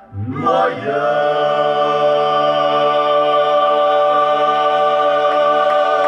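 Male klapa ensemble singing a cappella in close harmony: after a brief pause the voices come back in, the low voices sliding up, and then hold one long, steady chord, the song's final chord.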